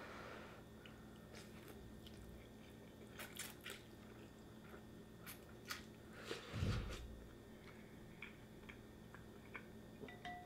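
A person eating ramen noodle soup: faint chewing and mouth sounds with scattered small clicks. About six and a half seconds in comes a louder sip of broth from a spoon.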